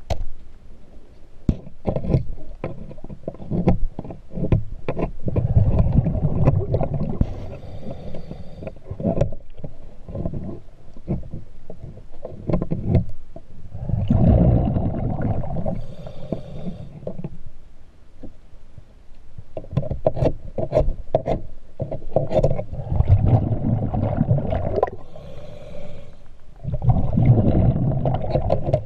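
Underwater recording of a scuba diver's exhaled bubbles, a low bubbling rumble lasting a few seconds, coming back every six to eight seconds. Sharp clicks and scrapes of hands and tools against the hull run between the breaths.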